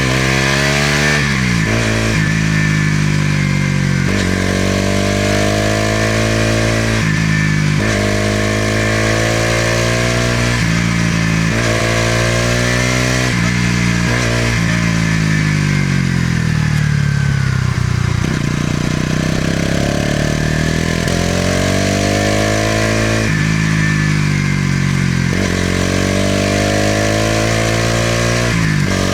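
Bajaj Pulsar NS200's single-cylinder engine and exhaust under way, its pitch climbing through the gears and dropping at each shift. About halfway through it falls off as the bike slows, then pulls up through the gears again.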